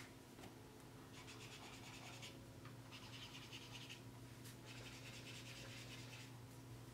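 Colorless blender marker tip scratching across paper in four short runs of strokes, faint, as the black marker swatches are blended.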